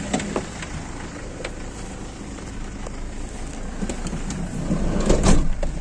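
Steady low rumble of a car and street traffic, with handling knocks and a loud rustle near the end as someone climbs into the car.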